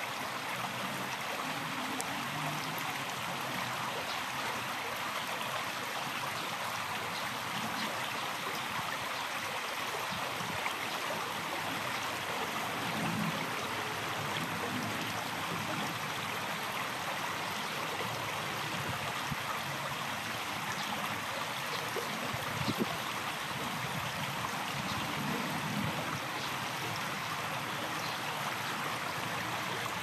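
Shallow river running over stones: a steady rush of flowing water, with one faint tick about three-quarters of the way through.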